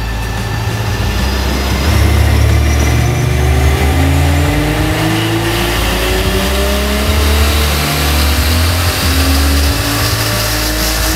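Supercharged 3.7-litre V6 of an Infiniti Q50 running through a STILLEN supercharger and exhaust on a chassis dyno, its engine note rising slowly in pitch over several seconds as it is run up.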